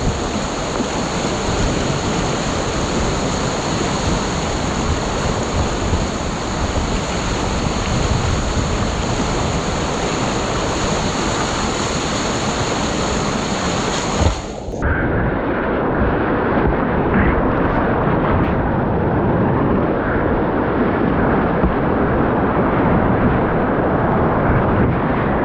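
White water rushing and churning loudly in an artificial whitewater course's stopper, the recirculating hole holding the kayak. About halfway through the sound cuts abruptly to a duller, more muffled rush of water.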